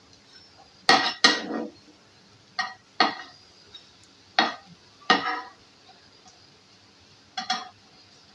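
A cooking utensil knocking and scraping against a frying pan as bread pieces are turned in hot oil: about seven short, irregular clatters.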